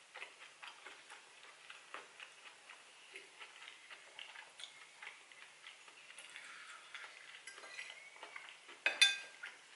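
Close-miked chewing with small wet mouth clicks, then a fork scraping in a bowl and, near the end, a loud ringing clink of the metal fork striking the bowl.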